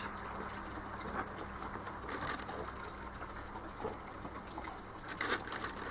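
Whole fresh mackerel laid by hand onto oiled aluminium foil on a barbecue grate: soft wet handling sounds and foil crackles, sharpest about two seconds in and again near the end, over a steady hiss.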